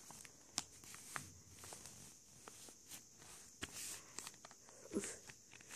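Faint, scattered rustles and short ticks of A4 paper being pressed and creased by hand, the strongest near the end.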